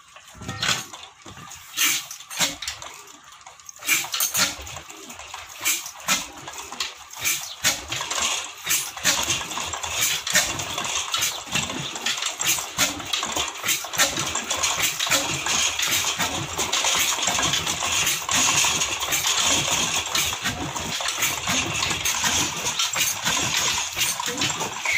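Old Ruston Hornsby diesel engine starting up: sharp metallic knocks about once a second at first, coming faster until they merge into a steady clattering run.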